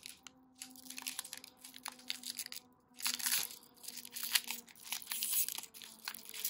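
Foil wrapper of a Pokémon TCG booster pack being torn open and crinkled by hand: a run of irregular crackling tears and rustles, loudest a little past halfway.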